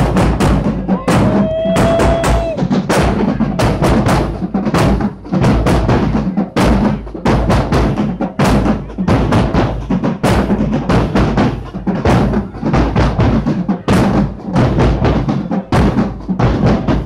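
Marching band drumline playing a loud drum cadence while marching, with bass drums, snare drums and tenor drums striking in quick succession.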